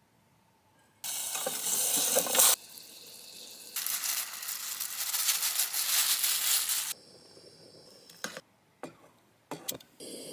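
Food sizzling in an aluminium camp-stove pot, in two loud spans that start and stop sharply, followed by a few short clicks.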